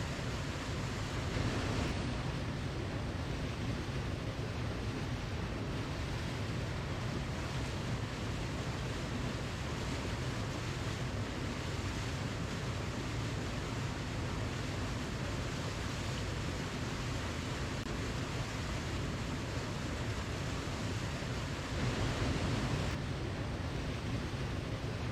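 Steady rushing of a waterfall, an even wash of water noise that swells slightly twice.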